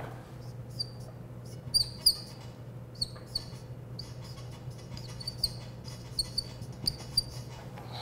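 Whiteboard marker squeaking across the board in a run of short high strokes as letters are written, the loudest squeaks about two seconds in. A steady low hum runs underneath.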